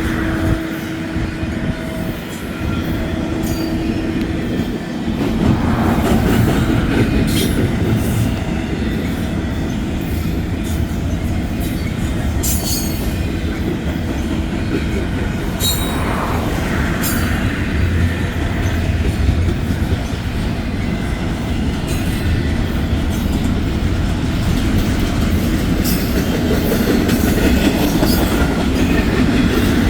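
Union Pacific SD70ACe diesel-electric locomotive, with a turbocharged two-stroke V16 engine, running with its train, a dense steady rumble with scattered sharp clicks from the rails. A steady tone fades out about five seconds in, as the sound gets louder.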